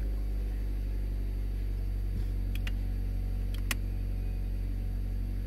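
2016 Mazda6's four-cylinder engine idling steadily just after starting, a low even hum, with a few faint clicks about halfway through.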